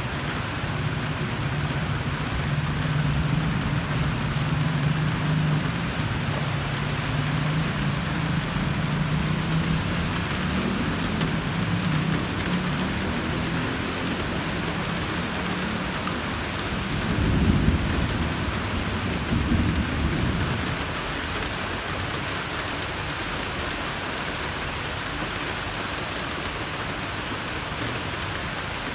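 Steady rain with thunder: a low rolling rumble through the first half, then a louder peal about 17 seconds in and another about two seconds later.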